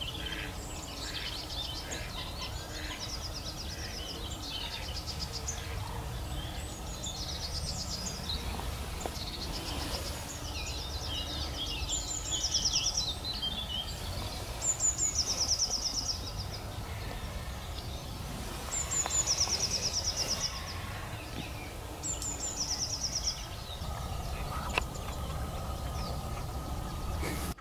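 Small birds singing: high chattering calls, then loud short bursts of song, each a sharp note followed by a fast run of repeated notes, coming back every few seconds. A steady low rumble runs underneath.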